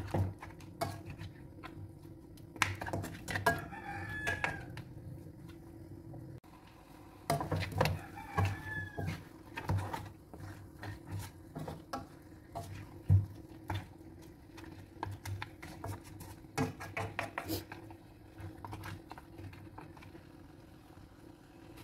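A spatula knocking and scraping in a non-stick wok as fish heads in thick spice paste are stirred and turned. A rooster crows twice in the background, a few seconds apart, in the first half.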